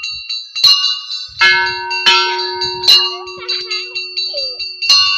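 Hanging brass temple bells rung by hand: about five strikes, with the ringing of each bell overlapping the next. One lower-pitched bell keeps sounding from about a second and a half in.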